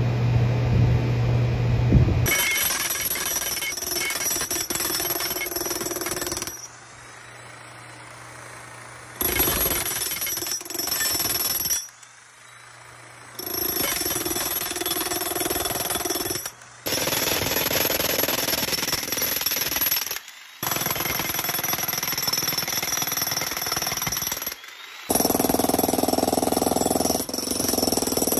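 Corded electric jackhammer breaking up a concrete sidewalk slab to reach a broken water line. It hammers in several runs of a few seconds each, with short pauses between them. A steady low hum comes before the first run, about two seconds in.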